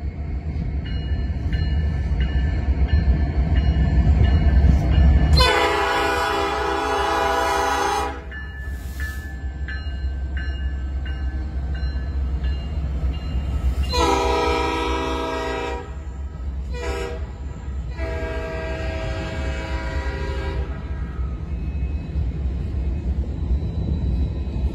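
CN diesel freight locomotives passing close by with a steady low rumble. The lead unit sounds its horn in the grade-crossing pattern: a long blast starting about five seconds in, a second long blast, a short one, and a final long blast.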